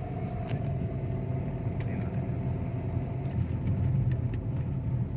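2000 Honda Civic SiR's four-cylinder engine being revved to about 3,000 RPM, getting louder about four seconds in, with a knocking clatter ('lagatak'). The knock is the sign of ignition timing set too far advanced at the distributor.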